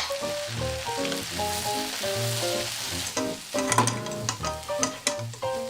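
Light background music: short melody notes stepping up and down over a repeating bass line. A steady sizzling hiss of frying food runs beneath it.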